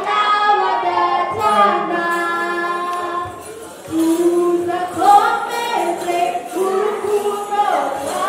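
Voices singing a Rwandan traditional dance song together, the melody held and bending in pitch, with a brief lull about three and a half seconds in.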